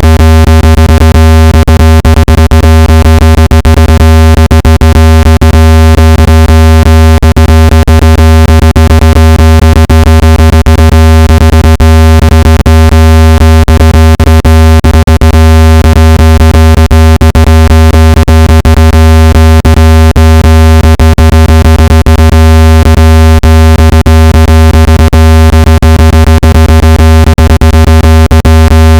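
Loud, steady, low-pitched synthesized tone with a buzzy row of overtones, played at full volume as a speaker water-ejection sound whose vibration is meant to push water out of a phone or earbud speaker. Many short clicks run through it.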